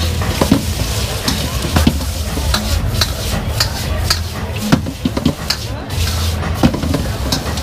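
Vegetables sizzling as they are stir-fried in a steel wok, with a metal spatula scraping and clinking against the pan at irregular moments throughout.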